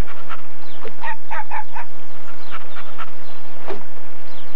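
Birds calling outdoors: scattered short calls, with a quick run of four louder, harsher calls about a second in.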